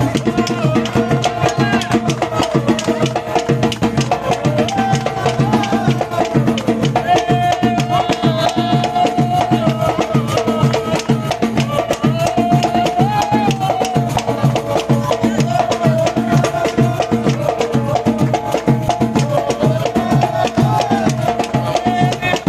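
Music with a singing voice over a steady beat of hand percussion.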